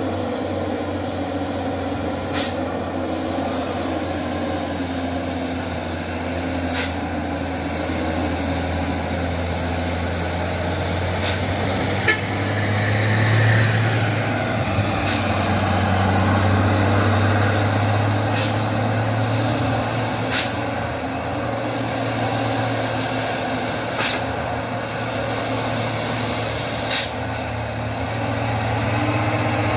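Dump truck diesel engine running under load with a steady low drone, swelling slightly partway through, typical of a heavy truck on a steep descent. Short sharp hisses cut in about every three to four seconds, like air-brake bursts.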